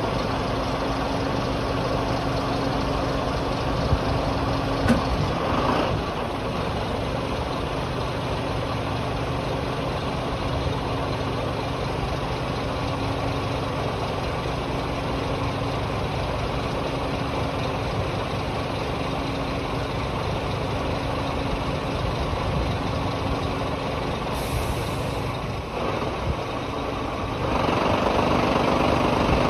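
Scania R440 truck's straight-six diesel running steadily at idle while its rear-mounted HIAB 166D-2 hydraulic crane folds its boom, with a steady low hum. A couple of short knocks come about four and five seconds in, and the sound gets louder about two seconds before the end.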